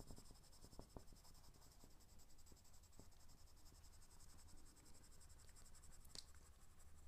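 Faint pencil strokes on drawing paper, a graphite pencil shading in short scratchy strokes, with one slightly sharper tick about six seconds in.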